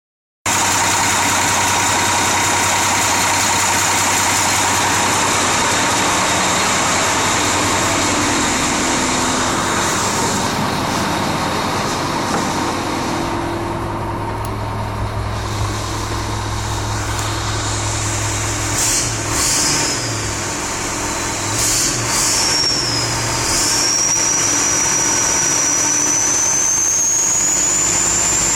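Cummins diesel engine running with a high, steady turbocharger whistle over the engine's low hum. In the second half the whistle wavers and dips a few times, then rises steadily in pitch toward the end as the turbo spools up.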